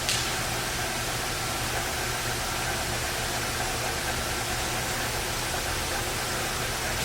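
Hardinge HC 5C chucker lathe running, its motor and spindle giving a steady hum with a faint whine over a hiss of machine noise. A brief sharper hiss comes just after the start.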